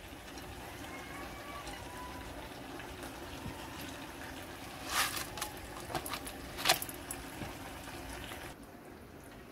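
Hot oil in a wok giving a steady low sizzle and hiss. About five seconds in, a run of sharp crackles and pops over two or three seconds as panch phoron seeds hit the hot oil and splutter.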